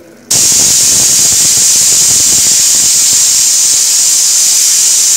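Aluminium stovetop pressure cooker whistling: a loud, steady jet of steam hisses out past its weight valve, starting suddenly and dying away at the end. It is one of the whistles counted to time the cooking, the sign that the cooker is up to pressure.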